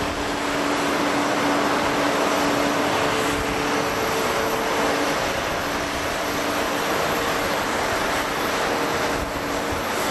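Jet noise from an ANA Boeing 787's Rolls-Royce Trent 1000 turbofans as the airliner rolls along the runway: a steady rush with a few faint steady hum tones underneath.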